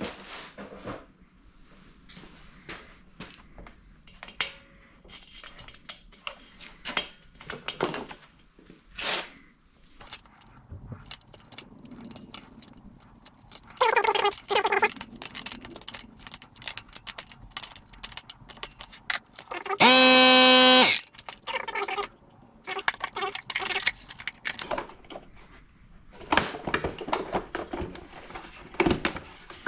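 Handling clatter on a small pancake air compressor: scattered clicks, taps and knocks of parts and tools being moved. About two-thirds of the way through comes a loud pitched tone, held for about a second.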